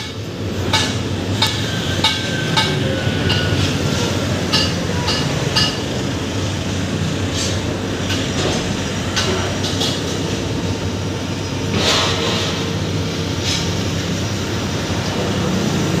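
Street traffic with cars passing close by, mixed with irregular sharp knocks from construction work. A louder rush of passing traffic comes about twelve seconds in.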